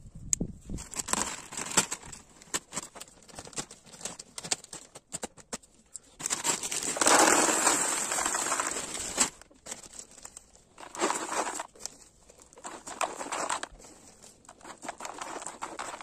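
Plastic bags crinkling and rustling with small clicks. About six seconds in, small white gravel pours from a bag into a large plastic plant pot for about three seconds, the loudest part. Shorter bursts of rustling and pouring follow.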